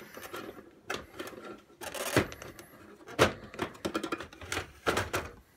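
Plastic cabinet of a Victor Clavia RC-G15MD CD/MD boombox being handled and pressed together by hand: a series of irregular plastic clicks and knocks.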